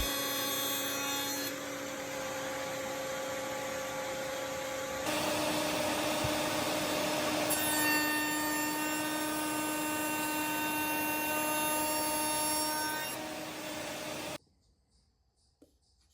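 Festool router in a router table running at speed with a steady whine while a rabbeting bit cuts wood, the sound shifting pitch and character a few times as the passes change. It cuts off suddenly about fourteen seconds in, leaving near silence.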